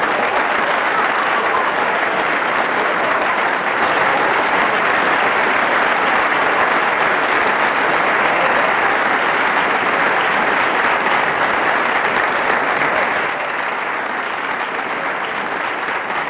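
Applause from a crowd: dense, steady clapping that starts abruptly just before and dips a little in level about thirteen seconds in.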